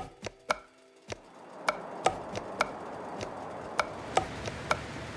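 Sparse, irregular percussive ticks, each with a brief ringing tone, from the soundtrack. A soft, airy hiss swells in underneath about one and a half seconds in.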